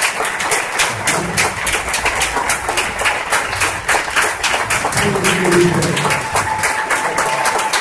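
Theatre audience applauding, dense clapping throughout, with a few voices calling out from the crowd.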